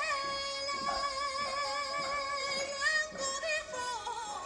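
A song playing: a voice sings long held notes with a wavering vibrato over the backing music.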